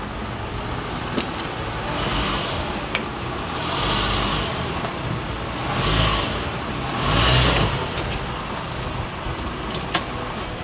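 A 2012 Toyota Sienna minivan's four-cylinder engine running as the van is driven up onto car ramps, swelling louder three times as throttle is given to climb the ramps.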